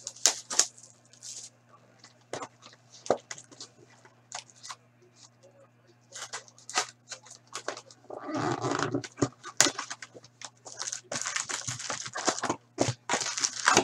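Crinkling and tearing of the foil wrapper and packaging as a hockey card box and pack are opened by hand, in many short rustles and rips, with a longer rough burst about eight seconds in and a dense crinkling stretch near the end, over a low steady hum.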